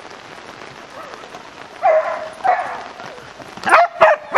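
A dog barking: two short barks about two seconds in, then three quick, sharp barks near the end.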